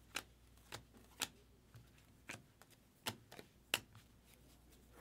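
Faint, irregularly spaced clicks and ticks of baseball cards being flipped one at a time through a stack held in the hands, roughly seven in five seconds.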